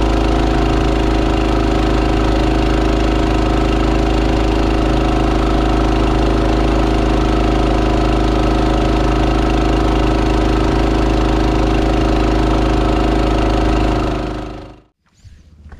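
Small boat's outboard motor running steadily under way at an even pitch, with the rush of the hull through the water; it fades out near the end.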